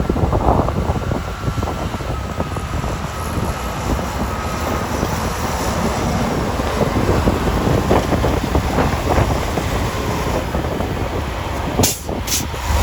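Heavy snow-removal machinery running steadily with a dense crackling rumble, as a rotary snowplow loads snow into a dump truck. Two sharp cracks come near the end.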